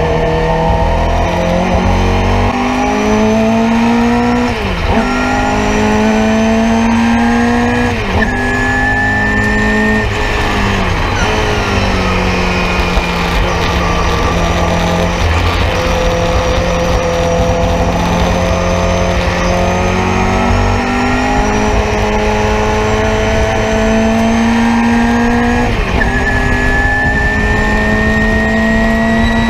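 Nissan Sentra race car's engine heard from inside the cabin under hard acceleration. Its pitch climbs and drops sharply at each upshift, with a long stretch of steady revs in the middle and one more shift near the end.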